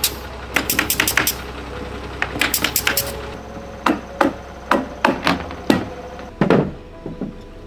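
Pneumatic staple gun firing into roofing membrane on a wooden roof deck: two quick runs of sharp shots, then single shots about every half second.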